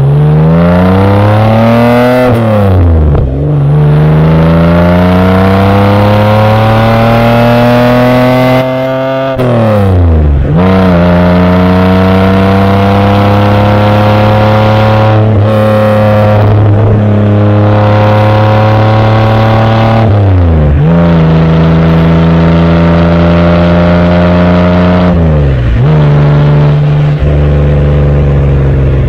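Exhaust of a 1971 Opel Commodore A GS's 2.8-litre straight-six at the twin tailpipes while driving. The engine note climbs under acceleration and drops sharply about four times, as at gear changes, then runs steadier near the end.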